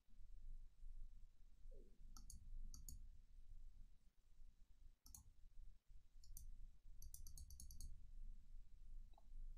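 Faint computer mouse clicks in a few short groups, with a quick run of clicks about seven seconds in, over a low hum.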